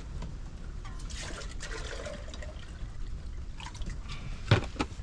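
Water trickling and splashing, with a sharp knock about four and a half seconds in.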